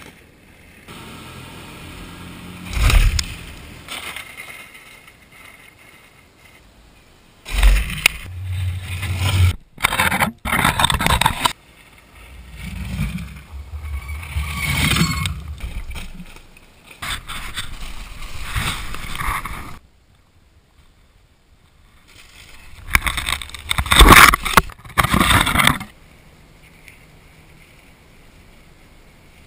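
Four-wheeled downhill mountain bike rushing past on a dirt trail, its tyres scraping and crunching over dirt and gravel. It comes in several separate noisy passes with gaps between them, the loudest just after a short lull near the end.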